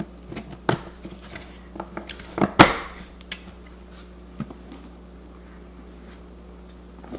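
Plastic batter bowl with a snap-on lid being tipped and turned over on a countertop, giving a few knocks and clatters. The loudest comes about two and a half seconds in, with a short noisy tail.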